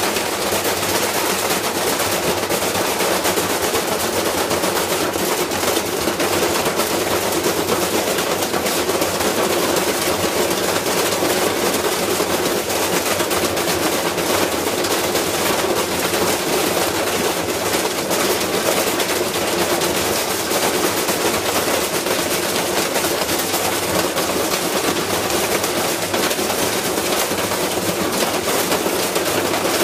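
Whirlpool washing machine spinning with a deliberately heavy load inside. The unbalanced drum hammers and rattles the cabinet in a fast, continuous metallic clatter that keeps going without a break.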